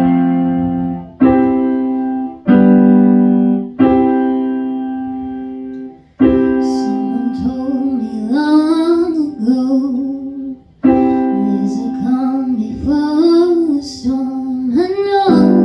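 Keyboard chords struck and left to ring, several in the first four seconds, then a voice singing over the keyboard from about seven seconds in.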